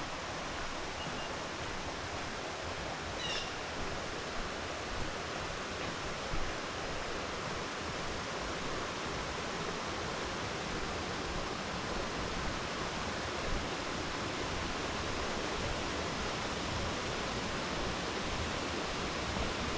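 Steady rushing of a shallow creek flowing over flat shale ledges in a gorge, with a brief bird chirp about three seconds in.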